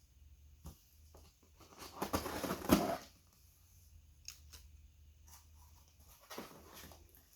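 A mailed package being opened and handled by hand: rustling and crinkling with a few small knocks, a louder burst of rustling about two seconds in and a shorter one near the end.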